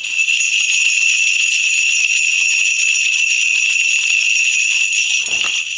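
A shaman's cluster of ritual bells (방울) shaken continuously in a dense, steady jingle, used to call the spirits at the start of a reading. It stops shortly before the end.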